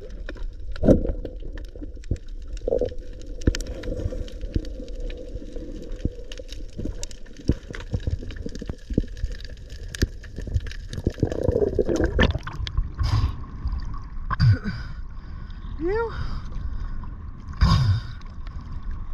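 Underwater recording of a diver swimming: muffled water rushing with many faint clicks and knocks. Roughly two-thirds through the sound changes to the surface, with water sloshing and splashing around the camera.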